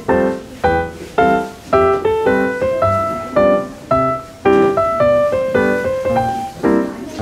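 Background piano music: a gentle melody of single notes over lower chords at an even, unhurried pace.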